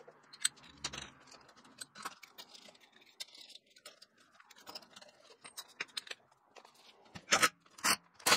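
Metal tools and parts being handled: scattered light clinks and scrapes, then three short, loud, sharp clanks near the end.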